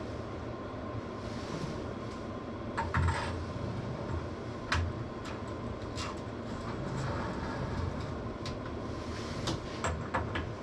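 Scattered knocks and clicks of parts being handled and fitted onto a mountain bike frame, over a steady low hum.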